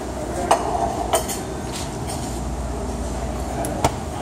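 Steady mechanical hum with a constant low tone, broken by three short sharp clicks or knocks: about half a second in, just after a second in, and near the end.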